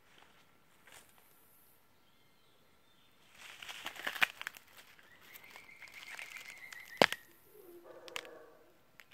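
Rustling of leaves and camera handling as it moves through forest undergrowth, with a single sharp knock about seven seconds in. Between these, a high steady bird whistle is held for about a second and a half, and a short hoarse call follows near the end.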